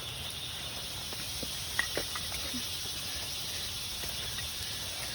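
Steady high hiss of outdoor background noise, with a few faint ticks about two seconds in.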